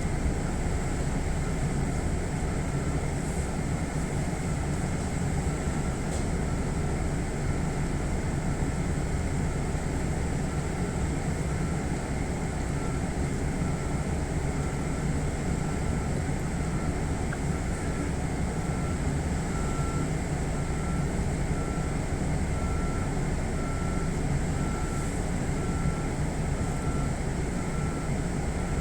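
Steady hum and rumble of a stopped electric train's onboard equipment heard inside the car, with a constant high whine and a faint tone that pulses on and off at even intervals.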